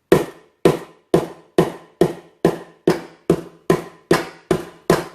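Back of a kitchen knife pounding stalks on a chopping board to bruise them: a steady run of about a dozen sharp knocks, a little over two a second.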